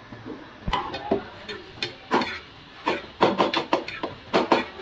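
Rolling pin knocking and clacking against the board as a roti is rolled out: sharp, irregular knocks, coming quicker, about five a second, in the second half.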